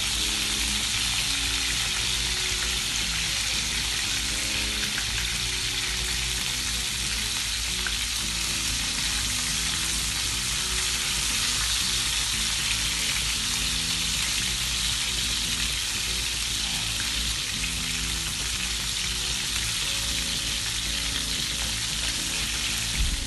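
Marinated chicken pieces shallow-frying in hot oil in a nonstick pan, being browned: a steady sizzle.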